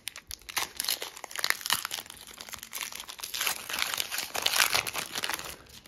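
Foil wrapper of a Pokémon trading-card booster pack crinkling and tearing as it is ripped open by hand, in irregular crackles.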